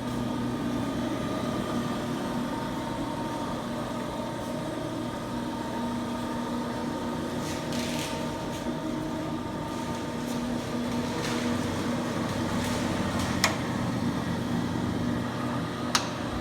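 Ammco 4000 brake lathe running steadily under its electric motor, a constant hum, with two sharp clicks, the second near the end.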